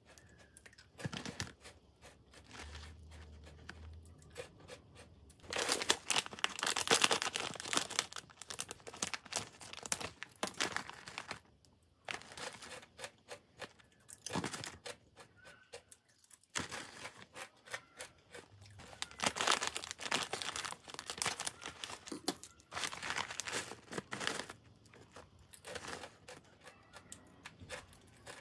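Foil-lined plastic snack bags crinkling and rustling in repeated bursts as they are handled and torn open.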